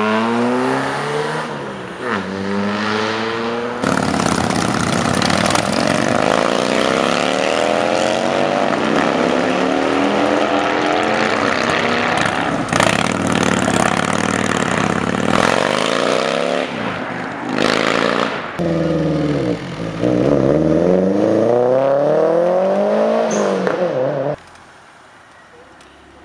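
Modified car engines revving and accelerating hard, the pitch climbing and falling back again and again as they pull away through the gears, with a few sharp cracks. The sound drops away suddenly near the end.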